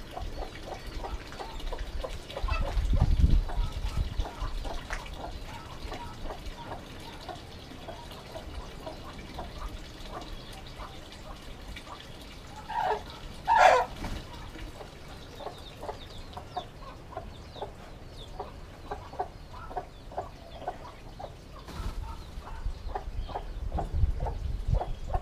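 Chickens clucking on and off, with one louder squawk about halfway through. A low rumble comes in early and again near the end.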